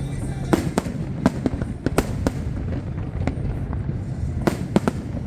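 Aerial fireworks shells bursting: about a dozen sharp bangs at irregular intervals, several close together, over a steady low rumble.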